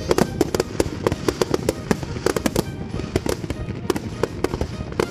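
Aerial fireworks display going off: a rapid, irregular run of bangs and crackles, several bursts every second.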